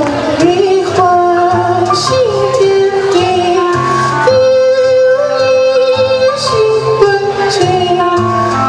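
A song sung in a high, female-style voice, with long held notes over a backing track with a repeating bass line.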